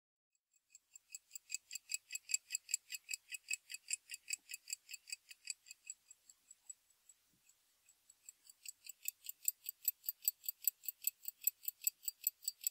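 Pocket watch ticking quickly and evenly, about five ticks a second. The ticking fades in, dies away around the middle, then comes back and grows louder.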